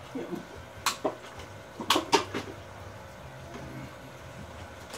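Hard plastic pieces of a Sky High Bridge Jump toy train set clacking together as they are fitted onto its tower: a few sharp clicks, two about a second in and two more about two seconds in.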